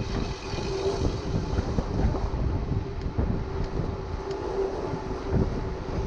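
Wind buffeting the microphone as a tandem mountain bike rolls along asphalt, with a steady hum from the tyres and a few faint ticks around the middle.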